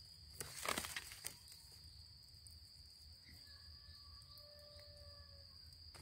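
Insects buzzing in a steady high-pitched drone, with a brief crackling rustle of dry leaves and handling about half a second in. A faint drawn-out tone sounds in the second half.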